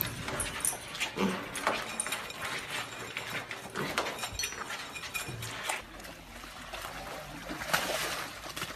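A pet pig eating dry cereal from a bowl, with quick, irregular crunching and chomping clicks. About six seconds in, this gives way to a fainter, more even background.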